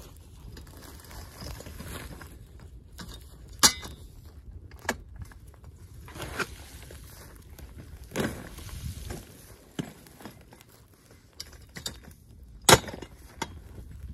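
Hand tool knocking and scraping through the hard-packed debris of a pack rat nest: scattered knocks and clinks with rustling between, and two sharp strikes, one about a third of the way in and one near the end.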